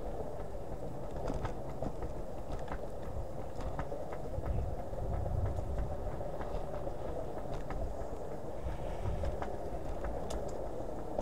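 Hiboy S2 Pro electric kick scooter riding along: a steady, slightly wavering whine from its hub motor over a low road and wind rumble, with scattered light clicks and rattles.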